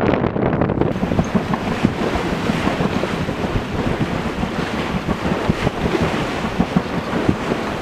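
Wind buffeting the microphone over the steady rush of sea water past a sailing yacht under way.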